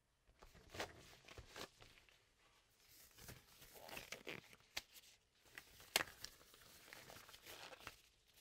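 Disposable exam glove pulled from its box and worked onto a hand: faint, irregular crinkling and rustling with sharp snaps, the loudest about six seconds in.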